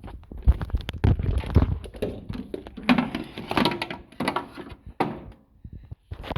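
A close clatter of irregular knocks, thumps and rattles, as of things being handled and set down. It is busiest in the first four seconds and thins out with a few sharp knocks near the end.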